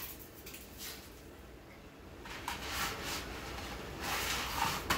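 Crinkling and rustling from a cardboard spaghetti box and dry spaghetti being handled, in a few short bursts, the longest near the end.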